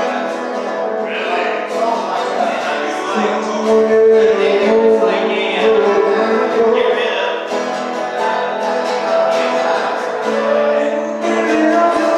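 Live music: a strummed acoustic guitar with a voice singing over it.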